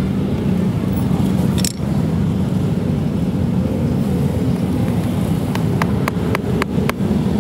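Loose steel nails clinking as a hand picks through a pile of them inside a rubber tyre, a quick run of small clicks near the end, with a single sharper knock about two seconds in. A steady low rumble runs underneath throughout.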